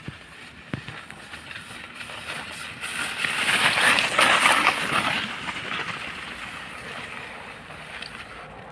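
Snow scooter's skis sliding and scraping across snow: a hiss that builds about three seconds in, peaks, then fades away over a couple of seconds as the sled sweeps through a turn.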